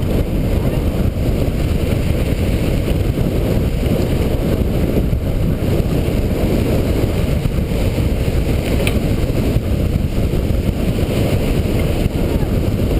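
Steady rush of wind buffeting an on-bike camera's microphone while a cyclocross racer rides at speed in a pack, mixed with the rolling noise of bicycle tyres on pavement.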